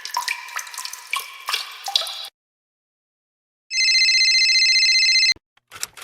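Sound effects one after another: first a run of short drip-like plinks and clicks, then a pause, then a loud steady buzzing tone that lasts about a second and a half and cuts off sharply, then quick clicks near the end.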